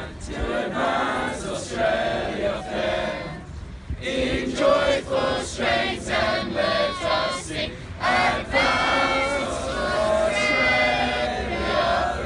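A large group of young men and women singing an anthem together in unison, with longer held notes in the second half.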